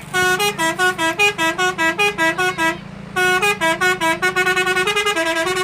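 Basuri telolet horn on a Sanjaya Trans bus playing a fast melody of short tooting notes, about four a second, stepping up and down. It breaks off briefly about three seconds in, then carries on over a steady low hum.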